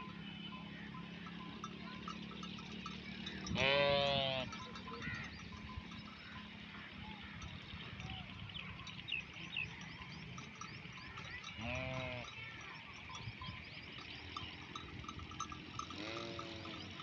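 Fat-tailed dumba sheep bleating three times, a loud call about four seconds in, a weaker one past the middle and another near the end, over the continuous clinking of the flock's neck bells.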